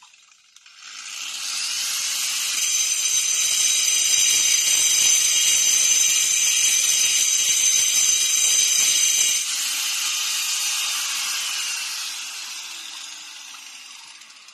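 Handheld electric grinder working on a stone boulder: a steady high-pitched whine that starts about a second in, drops in level about nine seconds in, then winds down with falling pitch toward the end.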